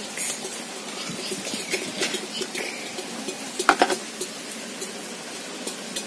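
Metal ladle stirring in a clay pot of egg curry, scraping and clinking against the pot, as boiled eggs are added. Scattered knocks, the loudest a quick cluster about four seconds in.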